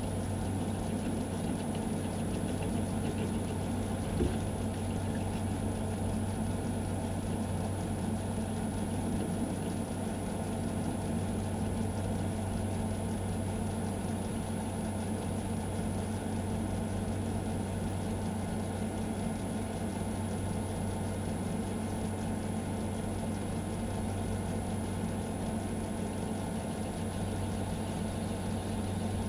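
Metal lathe running steadily, its motor humming, while a center drill in the tailstock is fed gently into the spinning steel shaft to cut a new center hole. One light tap about four seconds in.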